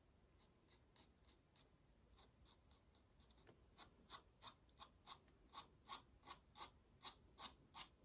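Fine-line ink pen scratching on watercolour paper in short strokes. The strokes are faint and sparse at first, then louder and quicker from about halfway, at roughly three a second.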